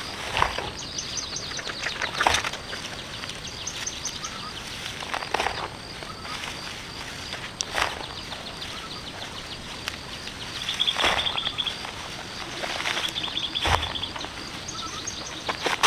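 Outdoor rural ambience: insects and birds chirping steadily in the background, with short trills near the end. Several separate rustling or scraping noises come a couple of seconds apart, like footsteps or handling of plants and tools.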